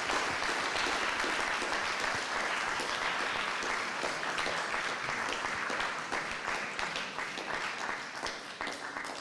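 Audience applauding, a dense patter of many hands clapping that holds steady and then thins out over the last few seconds.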